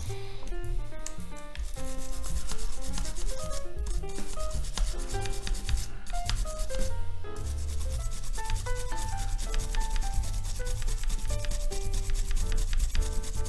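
Rapid, steady scrubbing strokes on the dirty body of a Nikon EM 35 mm film camera as it is cleaned, over background music with a melody and bass.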